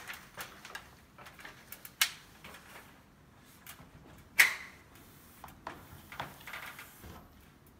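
A plastic squeegee scraping and tapping on film laid over a glass door panel: scattered short scrapes and taps, with a sharp knock about two seconds in and a louder one about four and a half seconds in.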